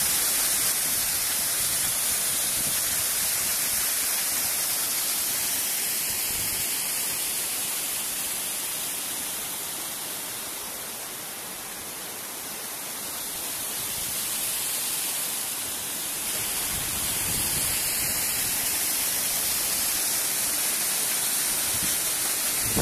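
Small mountain waterfall splashing down over rocks: a steady, loud rush of falling water that eases a little around the middle.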